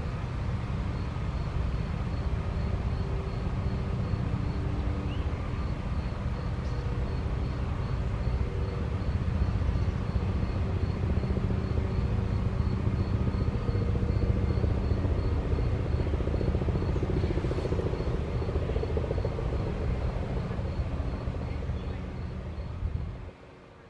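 Steady low engine rumble with several humming tones that shift in pitch. A faint high chirp repeats a few times a second above it. The whole thing cuts off suddenly near the end.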